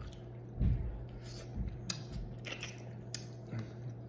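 A person chewing and biting food, with a few short crisp crunches and clicks.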